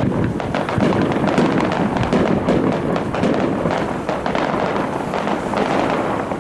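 Aerial fireworks shells bursting in rapid succession, a dense run of bangs and crackles that dies down at the very end.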